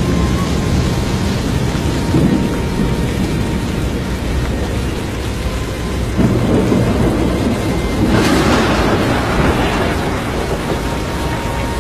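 Severe storm noise: a heavy, steady low rumble of wind and rain, with a harsher rushing hiss coming in about eight seconds in.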